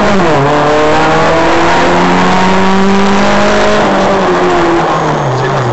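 Rally car's engine heard from inside the cabin under hard acceleration: the engine note drops sharply just after the start, as with a gear change up, then climbs steadily through the gear. Near the end the note falls away in steps as the driver eases off.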